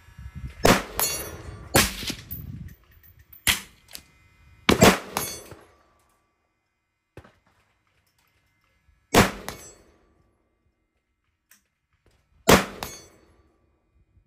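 Seven shots from a 6.5 Grendel AR-15 pistol with a 12.5-inch barrel, fired at uneven intervals with two close together near the middle, each trailing off in an echo.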